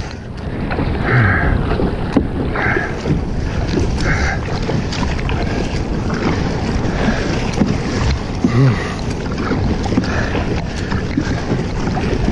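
Kayak being paddled at sea, with a paddle-stroke splash about every second and a half over steady wind noise on the microphone.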